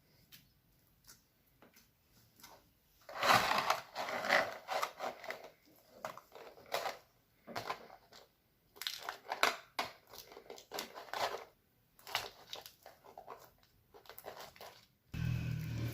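Slime being squeezed and poked by hand, making a run of irregular sticky clicks and pops, loudest about three to five seconds in.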